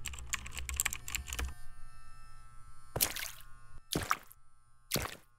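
Rapid keyboard-typing clicks, a typing sound effect, stopping about a second and a half in. A steady low hum follows, with three short sharp hits about a second apart.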